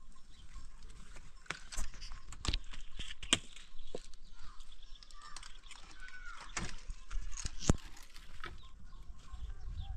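Split firewood being stacked onto a woodpile: a scatter of sharp wooden knocks as pieces strike one another, with faint animal calls in the background.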